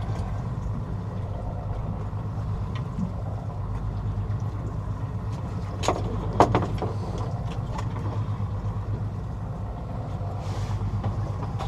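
Fishing boat's engine running steadily with a low, even hum, and a few sharp knocks about six seconds in.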